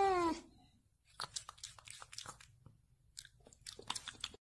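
A domestic cat's meow trailing off and falling in pitch, then a scatter of faint short clicks and crunches.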